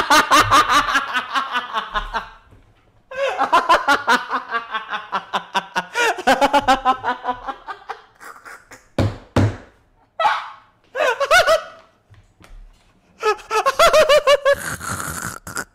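A man laughing hard in long runs of rapid pulses, broken by pauses for breath, with shorter fits of laughter in the second half.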